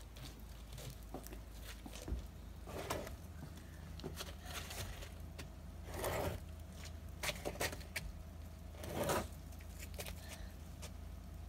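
Snow and ice scraped and crunched on a wooden deck by a child working with a plastic snow pusher: three short scrapes about three seconds apart, with a few small clicks and knocks between the last two.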